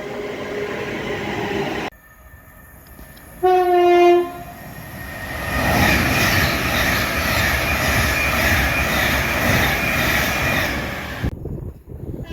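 Train horns from several spliced clips. A horn sounds and cuts off abruptly about two seconds in, a short loud single-note horn blast comes a little after three seconds, and then a long loud rushing noise of a passing train with a steady high tone over it runs until it is cut off near the end.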